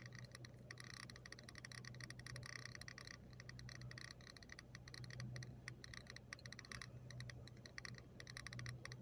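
Faint, rapid clicking that runs on without pause over a low steady hum; the clicking grows fainter after about three seconds.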